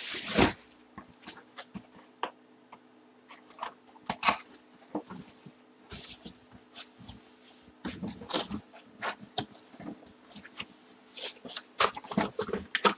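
Rustling, taps and scrapes of cardboard boxes and a plastic-bagged helmet being handled on a table. The sounds come in scattered clusters, the loudest a crackle right at the start, over a faint steady hum.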